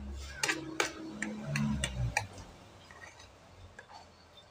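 Metal spoon and fork clicking and scraping against a ceramic plate of rice and pork stew, with several sharp clinks in the first two seconds over a low hum. After about two seconds it turns quieter, with only a few faint clicks.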